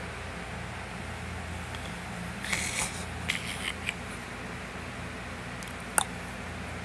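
Steady low hum of room noise, with a short spell of rustling handling noise about two and a half seconds in and a single sharp click about six seconds in.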